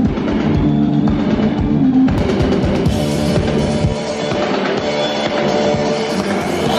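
Live band music with a heavy drum beat and guitar, loud and steady. About four seconds in, the drums and bass drop away, leaving sustained chords.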